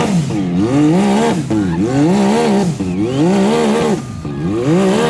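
Big-tire side-by-side UTV engine revved hard over and over, its pitch rising and falling about once a second, as the machine sits stuck in thick mud with its tires spinning. The revving eases off about four seconds in.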